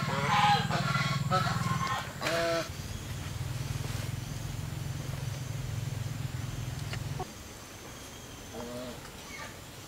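Farmyard fowl giving short calls over a low, rapidly pulsing drone like a small engine, which cuts out about seven seconds in.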